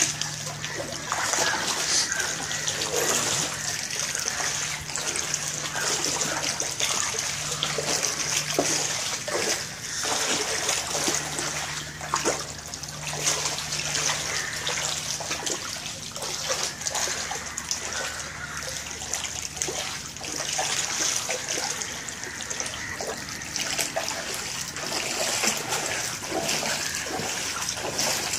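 Floodwater trickling and splashing, a steady wash of running water with many small irregular splashes.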